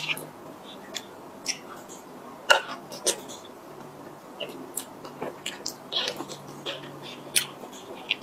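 Close-up eating sounds of soft cream cake: irregular wet mouth clicks and smacks while chewing, and a spoon scraping and tapping in a cardboard tray. The loudest click comes about two and a half seconds in.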